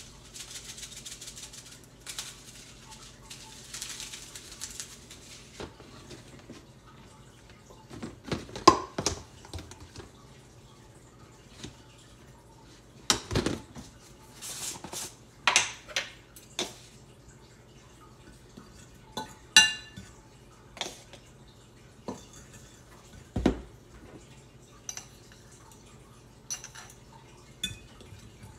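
Kitchen handling sounds: a white ceramic bowl set down on the counter and a metal fork knocking and clinking against it, as scattered separate knocks with a few ringing clinks. A soft hiss runs for the first few seconds.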